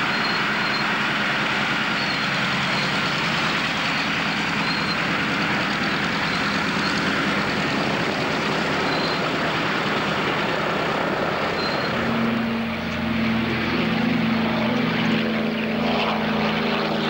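Douglas DC-3's twin radial piston engines and propellers running on the ground, a broad steady engine noise. About twelve seconds in it gives way to a steadier, more pitched engine drone as the aircraft climbs away after take-off.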